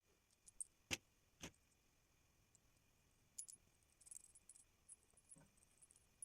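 Faint clicks and light clinking of small hard objects being handled: two sharp clicks about a second in, then scattered faint ticks and a soft knock near the end.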